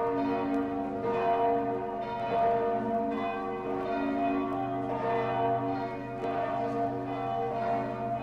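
Church bells pealing: several bells struck in turn, about two strikes a second, their long ringing overlapping over a steady low hum note.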